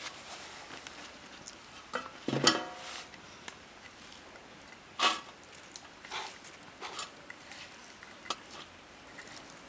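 Kitchenware being handled: a stainless steel tray set down with a ringing clink about two seconds in, then a few softer taps and rustles as small baby shrimp are tipped and pushed by hand off a plastic plate onto the tray.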